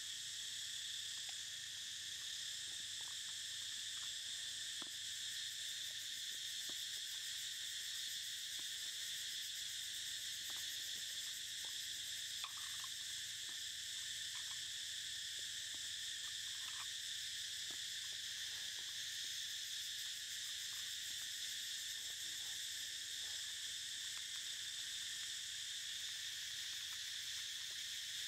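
Steady, high-pitched insect chorus that does not let up, with a few faint ticks and taps now and then.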